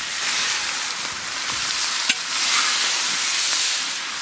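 Sliced onions sizzling steadily in hot oil in a large metal wok (kadai) as they are tipped in and stirred with a metal spatula. A single sharp click comes about two seconds in.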